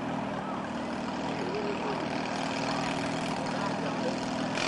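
Racing riding-mower engines running steadily at an even pitch, with faint crowd voices underneath.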